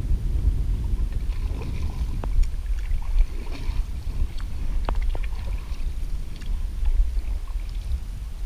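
Wind buffeting the camera microphone with a heavy, uneven rumble during canoe travel on a lake, with faint water sounds and a few sharp light knocks about two and five seconds in.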